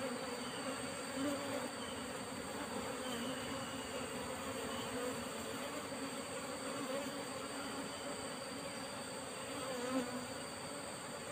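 A mass of Asian honeybees (Apis cerana) buzzing steadily, a continuous low hum of many wings over freshly cut-out combs.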